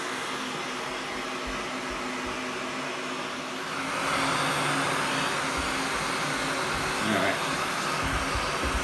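Heat gun running steadily, blowing hot air onto the plastic bumper cover to soften it so the dent can be pushed out. The air noise grows louder about four seconds in.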